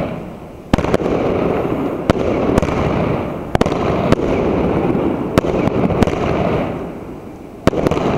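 New Year's Eve fireworks: about nine sharp bangs from aerial shells bursting, spaced unevenly, over a continuous rumbling crackle of further bursts. The rumble eases briefly near the start and again shortly before the end.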